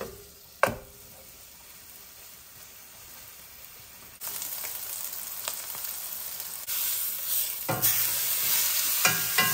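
Seasoned beef chuck roast searing in hot oil in a stainless steel pan: steady sizzling that jumps louder about four seconds in. A single sharp knock comes near the start, and metal tongs clank against the pan as the roast is turned near the end.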